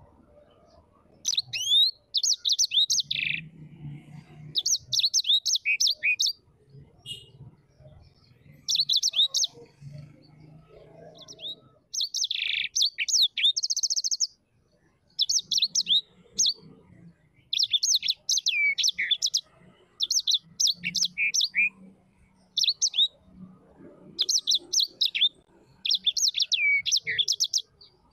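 A bird singing: phrases of rapid, high chirps and twitters, each a second or two long, repeated over and over with short pauses between them.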